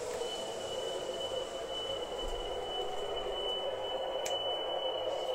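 MTH O-gauge CTA 3200-series model subway train running around its track, its motor and wheels giving a steady rumbling hum with faint regular pulses. A steady high-pitched electronic tone sounds from its sound system almost throughout, and there is one sharp click about four seconds in.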